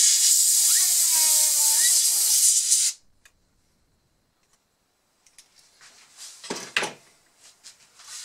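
A loud, steady hiss of rushing air lasts about three seconds, with a pitched tone over it that bends and rises near its end. After a short quiet come scattered clicks and a couple of sharper knocks.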